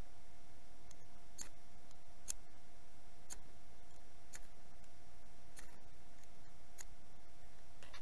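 About seven short, sharp clicks, spaced roughly a second apart, from a folding knife and a ferrocerium fire steel rod being handled, with a faint steady hum underneath.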